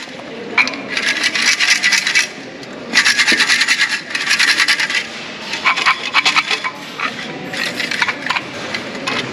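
Long wooden omikuji sticks rattling inside a hexagonal metal fortune canister as it is shaken in several bursts, two longer ones of a second or two and shorter ones later, while the shaker tries to work a single stick out through the small hole.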